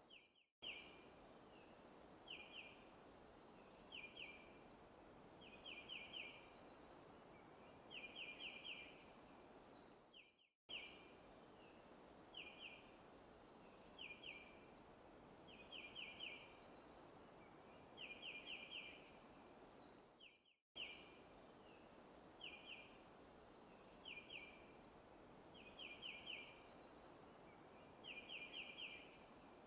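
Faint looped forest ambience: a bird repeats short chirping phrases of one to four quick notes about every two seconds over a soft steady hiss. The recording loops about every ten seconds, with a brief dropout each time it restarts.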